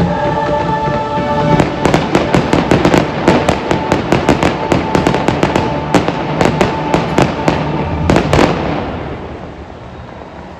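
Fireworks going off in quick succession over loud show music: dozens of sharp bangs and crackles starting about a second and a half in, stopping with the music about eight seconds in, then a fading rumble.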